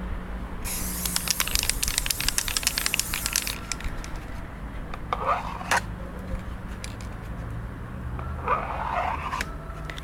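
Aerosol spray-paint can hissing in one burst of about three seconds, with many little clicks in the hiss. Two shorter scrapes follow a few seconds apart, over a low steady hum.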